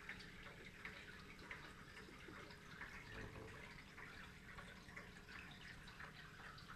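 Near silence: faint room tone with a few scattered soft ticks.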